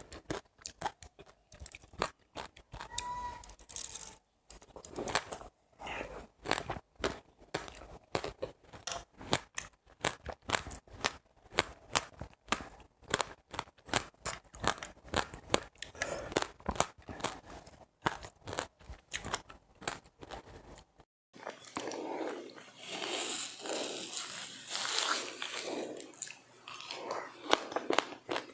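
Close-up chewing of crunchy seeds: a dense run of sharp little crunches and crackles. About three quarters of the way through the sound changes abruptly to a hissier background, with the crunching going on.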